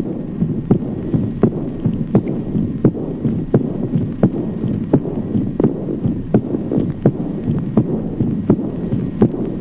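Heart sounds heard through a stethoscope recording of aortic insufficiency: a clear, accentuated second heart sound followed at once by a flowing diastolic murmur. The beats come sharply and regularly about every 0.7 seconds over a steady low murmur.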